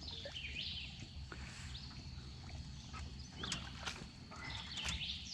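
A bird calling in short, repeated, downward-stepping phrases, with three sharp knocks between about three and a half and five seconds in.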